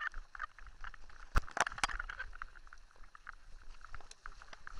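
Mountain bike rattling and knocking over a rough gravel track: a steady patter of small ticks, with three sharp knocks close together about a second and a half in.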